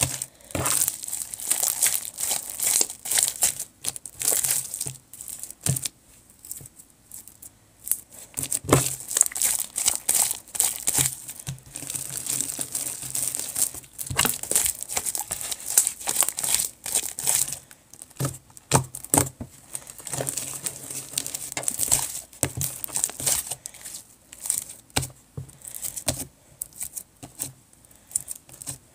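Jelly cube slime (glue slime with cut-up magic eraser sponge cubes) being worked and squished by hand, giving irregular crackling and popping in uneven spells with short quieter pauses.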